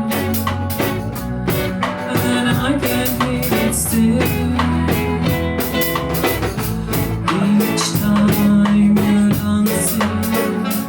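A live band playing a reggae-style song in an instrumental passage, with drum kit and rimshots keeping a steady beat over a bass line.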